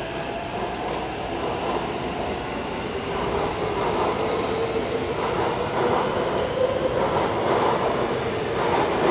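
Taipei Metro C381 train accelerating out of the station: its traction motors whine in several tones that slowly rise in pitch over the rumble of wheels on rail, growing gradually louder.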